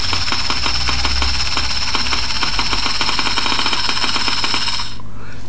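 3Shape TRIOS intraoral scanner running while it scans inside the mouth: a steady high whine with rapid fine ticking, which cuts off suddenly about five seconds in as the scan is stopped.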